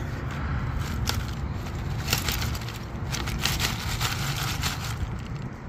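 Small plastic action-figure parts and dirt rattling and scraping in a plastic shopping basket shaken to sift the dirt out through its slots: a continuous clatter of many small clicks.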